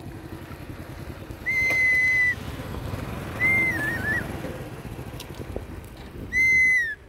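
Three loud, clear whistles, each under a second long: the first held steady, the second wavering up and down, the third dropping in pitch at its end. A steady low rumble runs underneath.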